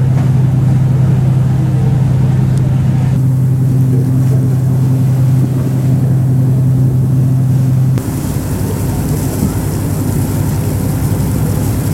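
Ferry engine running with a steady low hum under the rush of wind and water on deck. About eight seconds in the hum stops and a hissier wash of wind and water takes over.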